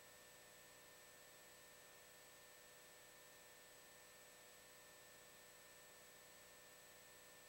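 Near silence: a faint steady hiss with a few faint steady tones, the recording's noise floor.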